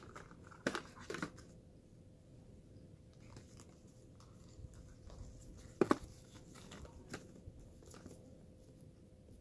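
Gloved hands handling plastic catheter drainage tubing and its packaging: light rustling with a few sharp clicks and crinkles, the loudest about six seconds in.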